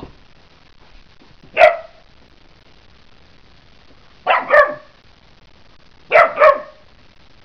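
A four-month-old Weimaraner puppy play-barking at its chew: one high bark, then two quick pairs of barks.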